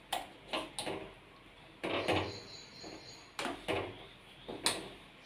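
Metal spoon scraping and clinking against a stainless-steel kadai while stirring thick shahi paneer gravy, in a series of short irregular knocks.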